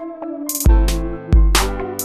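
Electronic background music with a steady beat: deep bass hits about every two-thirds of a second, sharp high percussion strikes and a sustained synth melody.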